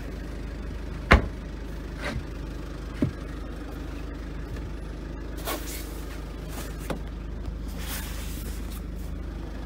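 Van bench seat's storage lid and cushion being lowered and handled: a sharp thump about a second in, then a few lighter knocks and rustles, over a steady low hum.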